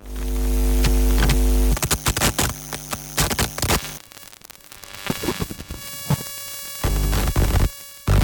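Designed signal-interference sound effects: a deep electronic hum with overtones breaks into stuttering, glitchy bursts of static and crackle. It drops to quieter crackling clicks, then a low buzzing hum returns near the end and cuts off.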